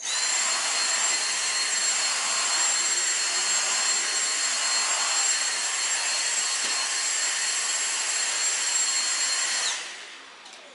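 Cordless handheld vacuum cleaner switching on at once and running steadily with a high-pitched whine over its airflow noise, then switching off near the end, the whine dropping as the motor winds down.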